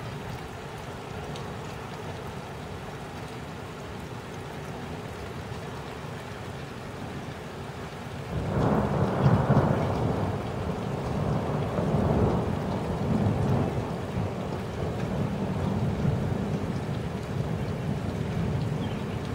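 Steady rain falling during a thunderstorm. About eight seconds in, a long peal of thunder breaks in suddenly and keeps rolling, swelling several times.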